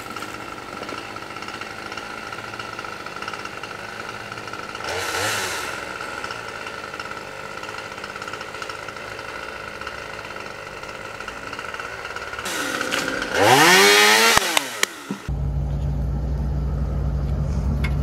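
Chainsaw running steadily, revving up and back down about two-thirds of the way through; after that a low, steady engine rumble takes over.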